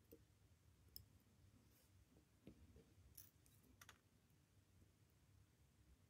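A few faint, sharp clicks of steel tweezers touching the metal parts of a Seiko 6138 chronograph watch movement, against near silence.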